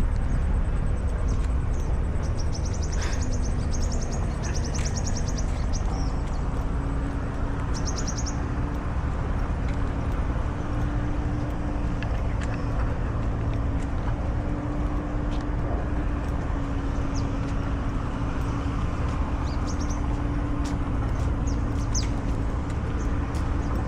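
Steady road-traffic rumble with a low engine hum held throughout, rising slightly in pitch partway through, while birds chirp in short high trills, several in the first third and a few more near the end.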